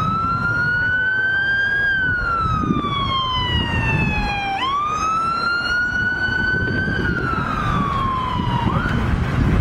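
Police escort car's siren wailing in slow rising-and-falling sweeps, about two full cycles, over the low rumble of passing motorcycles and traffic.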